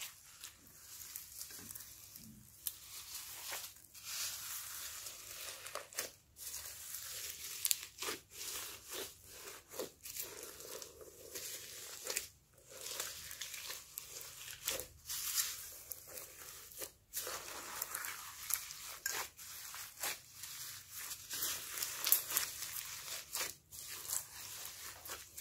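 Hands squishing, stretching and folding glossy slime packed with small foam beads: an uneven stream of small crackling and sticky pulling noises, mostly high-pitched, with many brief pauses.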